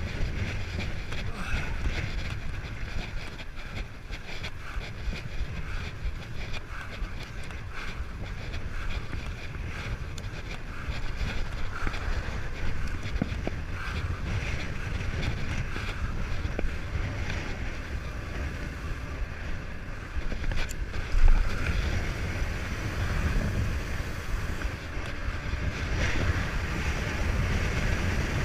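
Wind buffeting the microphone in a steady low rumble, over the rattle and clicking of a downhill mountain bike riding over a dirt trail. One sharp, loud knock about three quarters of the way through.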